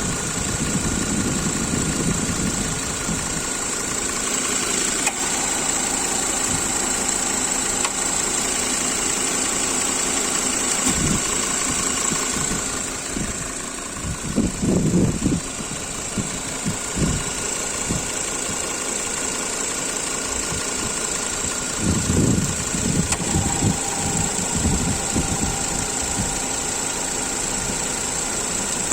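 Ford Kuga running steadily, with irregular low knocks coming in short clusters about halfway through and again near the end: the extraneous knock the owner is trying to trace.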